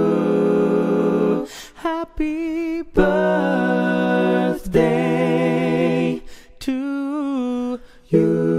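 Vocal music: held sung notes, some wavering, cut by several short sudden breaks.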